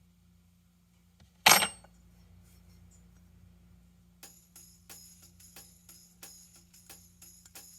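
A single loud, short noisy burst about a second and a half in, then background music starting about four seconds in with a steady, jingling percussion beat.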